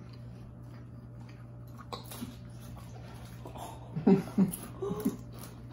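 Two people chewing mouthfuls of dry goldfish crackers with faint crunching, then, about four seconds in, short muffled voice sounds through closed, full mouths. A steady low hum runs underneath.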